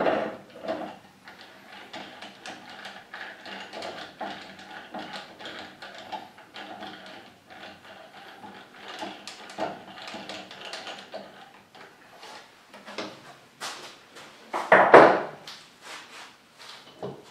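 Steel woodturning scroll chucks being handled on a lathe bed, their jaws worked with a chuck key: a steady run of metal clicks, clinks and scrapes, with a louder clatter about fifteen seconds in.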